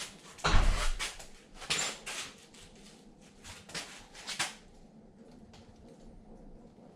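Scattered knocks, clatters and rustling of objects being handled, the loudest a heavy thump about half a second in, thinning to a few light ticks in the second half.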